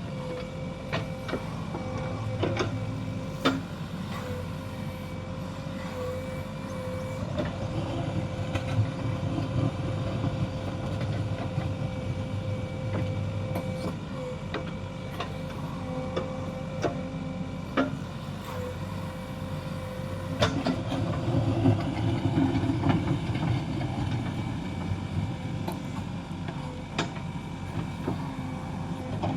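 Diesel engine of a JCB 3DX backhoe loader running while it digs and loads mud, with a steady whine over the engine and occasional sharp clanks. The engine works harder and grows louder about two-thirds of the way through.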